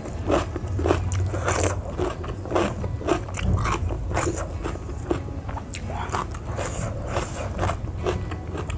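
Close-up chewing and biting of crunchy raw vegetables and jengkol, a run of irregular crisp crunches, two or three a second.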